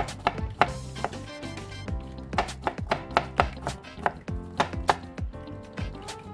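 Chef's knife chopping onion on a wooden cutting board: quick, irregular knife strikes against the board, several a second.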